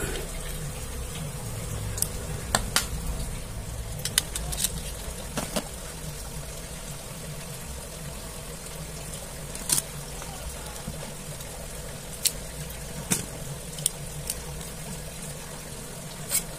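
Scattered light clicks and taps, about ten in all, as small plastic phone parts and a precision screwdriver are handled while a smartphone is taken apart. A steady low hum runs underneath.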